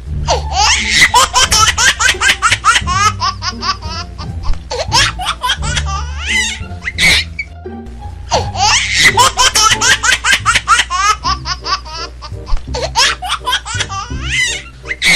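Peals of laughter over background music with a steady bass line; a similar run of laughter comes back about halfway through.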